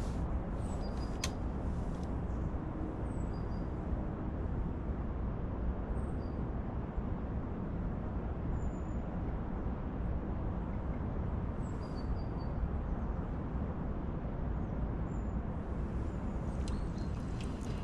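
Steady low outdoor rumble with a few faint, short high bird chirps scattered through it.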